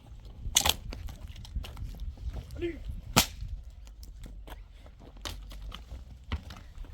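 Building work: two sharp knocks, about half a second and three seconds in, among lighter taps and clatter, over a low steady rumble.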